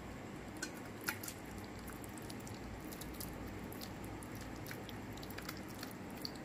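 Thick mushroom masala sliding out of a nonstick pan into a steel bowl: faint wet squelching with scattered small clicks over a steady low room noise.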